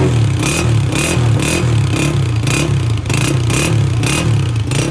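Honda CG125 single-cylinder four-stroke engine running, exhaust note with a regular hiss recurring about twice a second.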